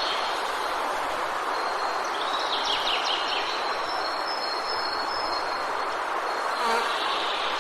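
Steady wind blowing, with songbirds chirping over it: a quick flurry of high chirps about two and a half seconds in and a short call near the end.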